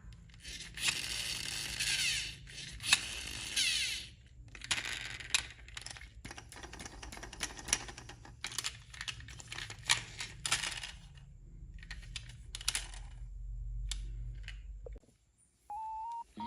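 Scale RC construction machinery working: irregular clicking and rattling, with bursts of scraping hiss early on, over a steady low motor hum that stops about 15 seconds in.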